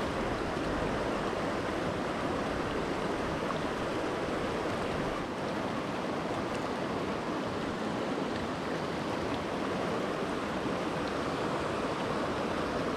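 Steady rush of a shallow, fast-moving mountain creek flowing over rocks, an even noise with no breaks.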